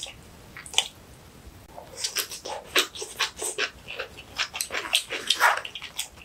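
Close-miked chewing of crunchy kimchi: a couple of clicks, then from about two seconds in a fast, irregular run of crisp crunches and wet mouth sounds.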